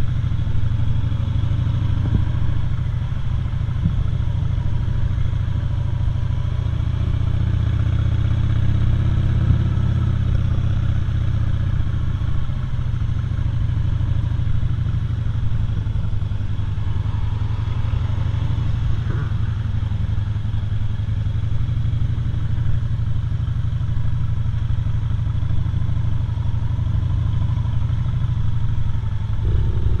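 Cruiser motorcycle engine running steadily at low speed, heard from the rider's seat.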